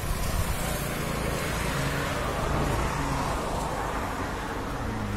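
HMT 2522 diesel engine fitted to a boring machine, running steadily.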